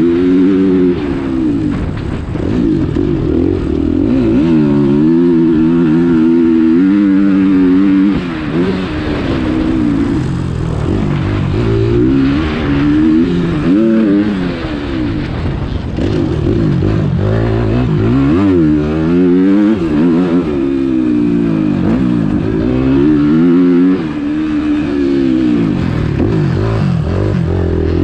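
Motocross dirt bike engine being ridden hard: its pitch climbs and drops again and again as the rider works the throttle and gears. The throttle shuts off briefly a few times.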